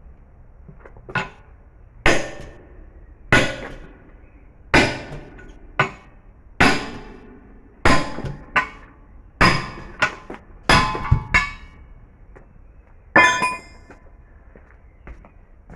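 About fifteen hammer blows on metal at uneven intervals, each ringing briefly, with a quick run of strikes near the middle and a last, loudest ringing blow near the end. The blows fall while an old truck tyre is being worked off its wheel.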